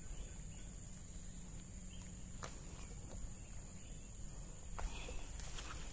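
Insects making a steady high-pitched drone over a low rumble, with a few faint clicks about two and a half seconds in and near the end.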